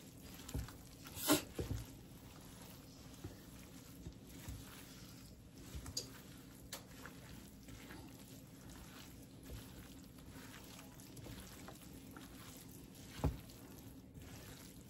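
Wooden spoon stirring moist cornbread dressing in a stainless steel bowl: faint squishing with a few soft knocks of the spoon against the bowl, the clearest near the end.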